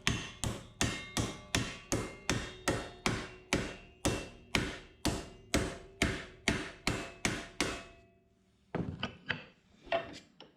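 Hammer striking a strip of steel in steady blows, about three a second, each with a short metallic ring, bending it into an angle. The hammering stops about eight seconds in, followed by a few lighter knocks.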